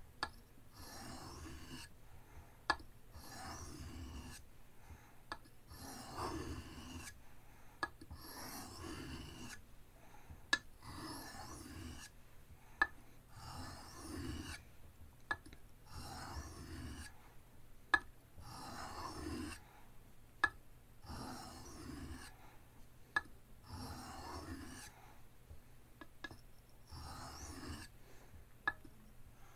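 Knife blade stroked across an oiled soft Arkansas whetstone, a rasping scrape about once a second, with a sharp click about every two and a half seconds.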